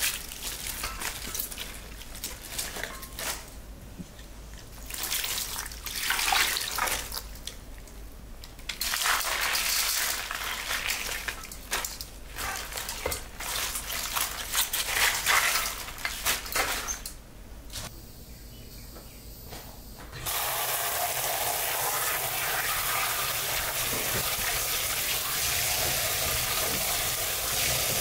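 Napa cabbage leaves being pulled apart and handled in a stainless steel bowl, crisp crackling rustles coming in uneven bursts. About twenty seconds in, a kitchen tap starts running steadily into a steel bowl of cabbage in the sink to rinse it.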